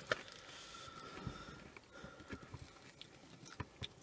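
Faint chewing of crisp battered fried rings, with scattered small clicks and mouth noises as food is picked up and eaten.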